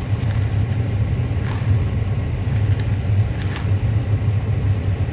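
Steady low rumble of a car heard from inside its cabin, with a couple of faint brief rustles.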